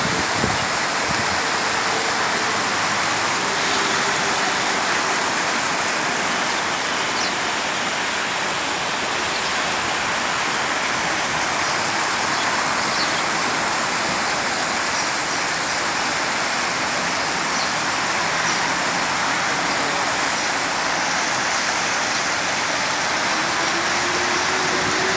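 Steady rushing water from a stream or waterfall, an even hiss without breaks.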